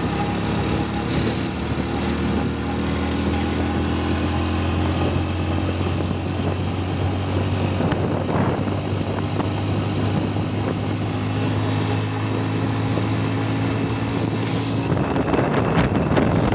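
A road vehicle's engine runs steadily as it drives along, heard from on board with road and wind noise. Near the end the steady engine note gives way to a rougher noise.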